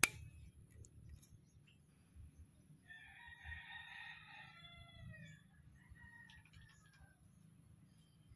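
A rooster crows once, a call of about two seconds that starts about three seconds in and drops in pitch at the end, followed by fainter short calls. A single sharp crack comes at the very start and is the loudest moment.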